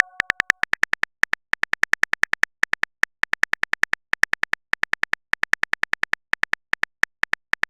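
Phone keyboard typing sound effect: rapid, high clicks, about eight a second, in runs with brief pauses. The tail of a message chime fades out at the very start.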